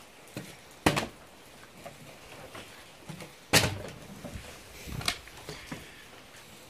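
A plastic water bottle flipped onto a wooden floor, landing with sharp knocks and falling over. There are three main knocks, about a second in, about three and a half seconds in (the loudest) and about five seconds in, with softer taps between.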